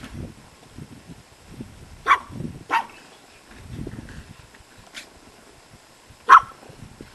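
Small dog giving a few short, high yaps spread over several seconds, the loudest near the end.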